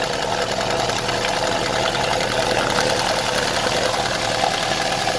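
Opel Vectra A engine idling steadily with the cylinder head cover removed, its valvetrain ticking rapidly. Oil is reaching the worn eighth cam lobe, and the lifter knock sounds to the owner as if it is becoming normal.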